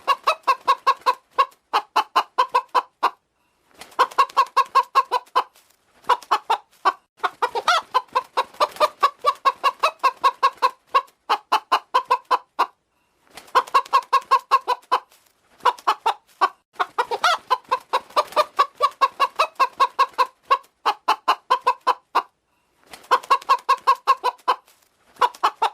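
Hen clucking in rapid runs of short, repeated notes, several each second, broken by brief pauses every few seconds.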